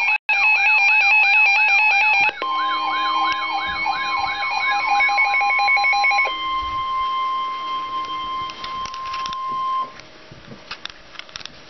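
NOAA Weather Radio tornado-warning alert: electronic alarm tones beeping rapidly together with a repeating falling warble like a siren. About two seconds in, a steady warning tone near 1 kHz joins them. The beeping and warble die away around six seconds, and the steady tone cuts off near ten seconds, leaving a quieter stretch with a few clicks.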